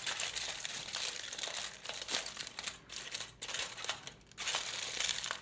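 Aluminium foil being crumpled, pressed and wrapped by hand, a dense irregular crinkling and crackling that pauses briefly about four seconds in.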